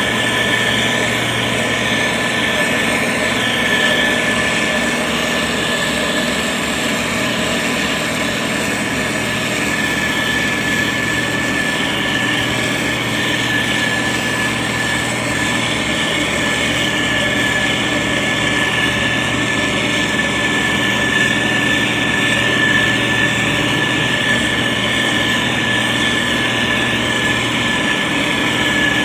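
Diesel engine of a SANY STG190C-8S motor grader running steadily, with a constant high whine over the engine drone.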